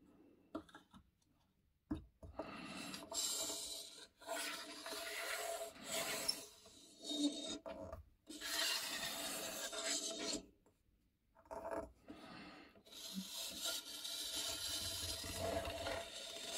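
Circle cutter's blade scraping round on paper in a series of rasping strokes a second or two long, with short pauses between. The new blade is dragging and struggling to cut through the paper.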